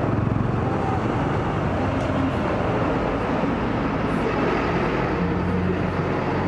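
Steady low engine drone with a constant hum, running evenly without breaks.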